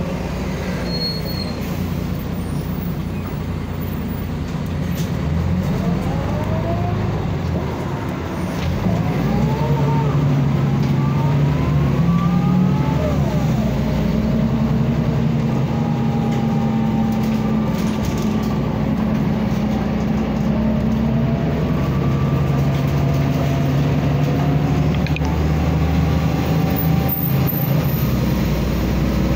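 Mercedes-Benz O405N2 city bus heard from inside the cabin, its OM447hLA straight-six diesel pulling under way. About six seconds in, a whine climbs in pitch and drops back several times as the bus picks up speed through its automatic gears, then settles into a steady drone.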